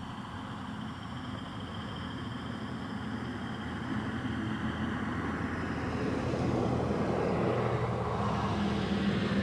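Steady low engine hum with rumbling noise that grows gradually louder through the second half, like a motor vehicle drawing near.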